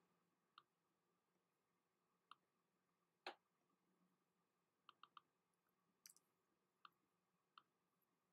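Faint, sparse computer mouse clicks, about ten in all: one louder about three seconds in and a quick run of three about five seconds in, over near silence.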